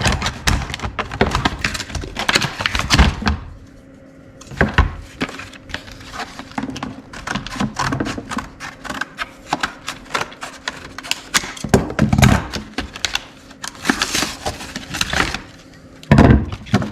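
Tool packaging being cut open with scissors and handled: rapid crackling and rustling with clicks and light thunks.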